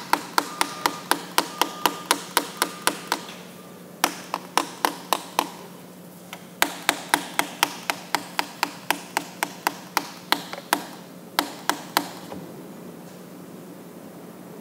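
Wooden tongue depressor tapping the side of a plastic mixing cup of freshly poured Ultracal 30 plaster, in quick even taps about three to four a second, in several runs with short pauses, stopping near the end. The tapping is done to bring trapped air bubbles up to the surface of the wet plaster.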